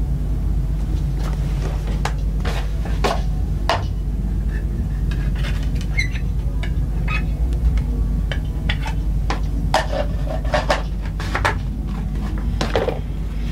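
Small hard objects clicking and clattering as they are picked up and moved about on a table, a dozen or so irregular knocks, over a steady low hum.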